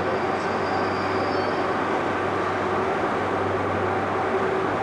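InterCity 125 (HST) Class 43 power car's diesel engine running as the train pulls away along the platform: a steady drone, with a faint high whine in the first second or so.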